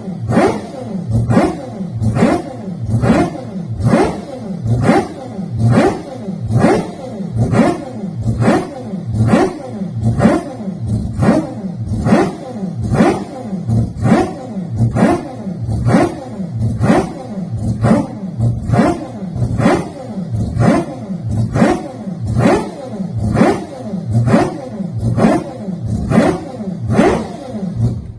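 Mazda 767B's four-rotor 13J rotary racing engine revved over and over while the car stands still, each rev rising and falling about once a second, loud throughout. The engine cuts off abruptly at the very end.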